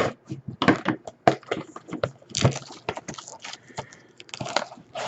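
Crinkling and tearing as a sealed box of trading cards is opened: irregular crackles and clicks of wrapping and cardboard being handled.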